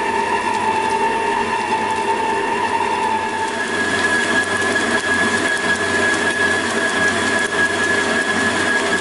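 Stand mixer motor running at speed, its dough hook kneading bun dough with butter being worked in, giving a steady mechanical whine. The whine's main tone shifts higher about three and a half seconds in.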